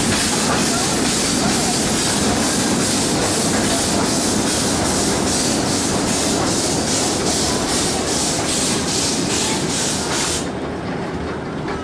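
Miniature live-steam train hissing steam in an even pulse of about two to three beats a second, over a low running rumble. The hiss cuts off suddenly near the end, leaving the lower rumble.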